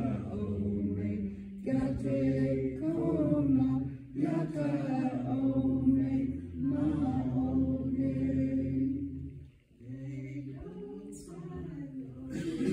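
Several voices singing a Kiowa hymn unaccompanied, in long held phrases with brief breaks between them.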